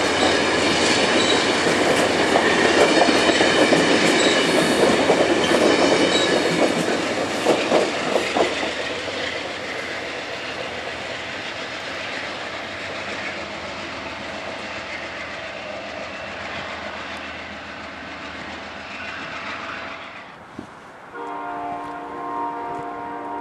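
Passenger train coaches passing close, wheels clacking over the rail joints, the rumble fading as the train moves away. About 21 seconds in a diesel locomotive horn starts sounding a steady multi-note chord.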